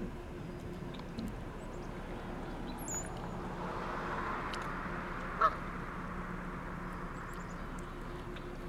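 A Canada goose gives one short call about five and a half seconds in, the loudest sound, over a steady low hum and a few faint high chirps.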